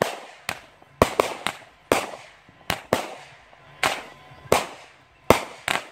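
Aerial fireworks bursting in quick, uneven succession: about a dozen sharp bangs, each dying away in a short echoing tail.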